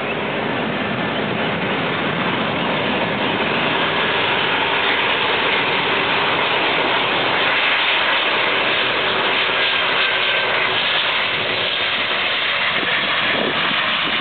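Boeing 737-800 jet airliner on final approach, its CFM56 turbofan engines giving a steady rushing jet noise with a faint whine, swelling slightly as it comes in low to land.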